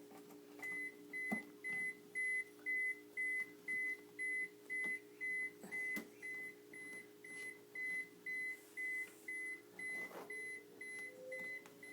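Refrigerator door-open alarm beeping, a single high tone repeated evenly a little over twice a second, starting just under a second in: the sign of a door left open. A steady low hum runs underneath, with a few light knocks.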